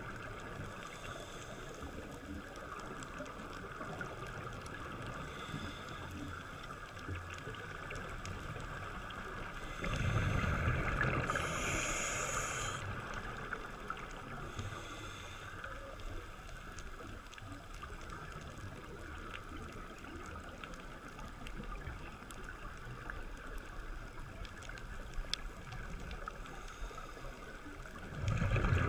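Underwater hiss with a scuba diver's exhaled regulator bubbles, heard through the camera housing; a louder rush of bubbles comes about ten seconds in and again at the very end.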